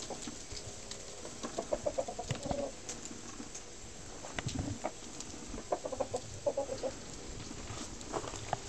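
Rooster clucking in two short runs of quick low notes, one about a second and a half in and another about six seconds in.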